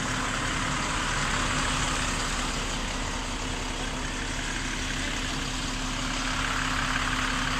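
A large bus's engine idling with a steady, unchanging hum.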